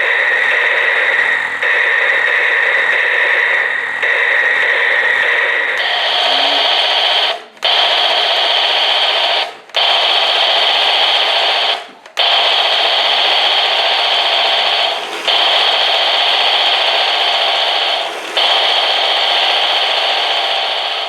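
A battery-powered toy gun's electronic sound effect played through its small speaker: a loud, harsh, steady buzzing noise. It shifts to a higher pitch about six seconds in and is broken by several brief gaps, as if the trigger were let go and pressed again.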